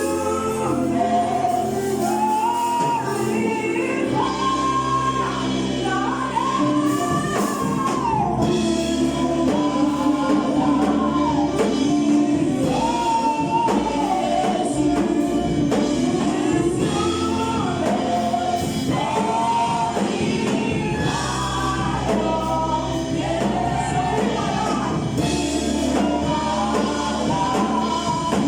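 Church choir singing a gospel song over a steady bass line, the voices moving together in a melody.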